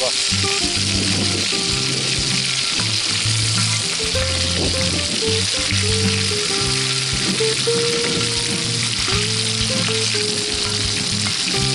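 Mudskippers frying in hot oil in a wok on a portable gas stove: a steady, even sizzle, with a slotted metal spatula turning the fish now and then. A background melody of steady notes plays underneath.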